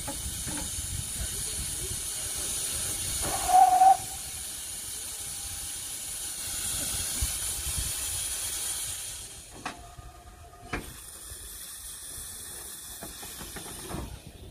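Steam locomotive letting off steam in a steady hiss, which dies down about nine and a half seconds in. A short, loud high note sounds about three and a half seconds in, and a fainter brief one around ten seconds.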